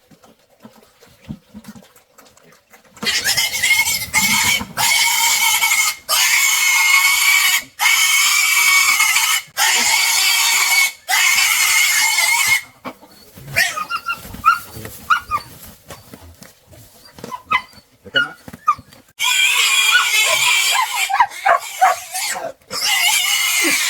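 Pigs squealing in long, shrill screams, each a second or so long with short breaks between, the way pigs scream when caught and held. The screams die down to short cries and grunts about halfway through, then start again near the end.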